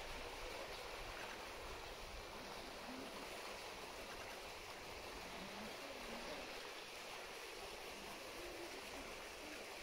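Steady rush of moving water in a polar bear's pool, an even hiss with no distinct splashes.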